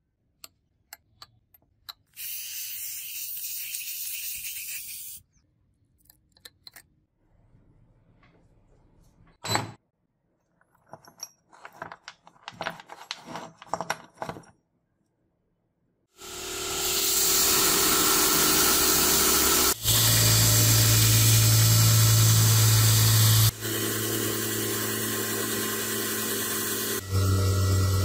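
Scattered light clicks and taps and a hiss lasting about three seconds. Then, for the second half, a belt grinder runs loudly with a steel knife blank pressed against the belt, its tone shifting two or three times.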